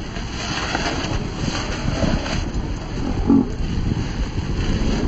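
Wind buffeting the microphone aboard a small sailboat running under spinnaker, with water rushing along the hull, and a brief louder gust a little past halfway.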